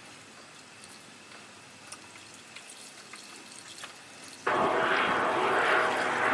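Windshield washer fluid being poured, starting suddenly about four and a half seconds in as a loud rush that swells and eases about once a second; before that only faint clicks.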